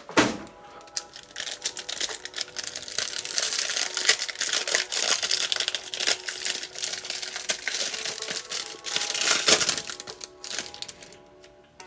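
Plastic wrapper crinkling and rustling in long, dense crackly stretches as a trading-card pack is handled and opened.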